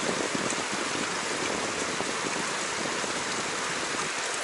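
Steady rush of a river's current flowing over rocks.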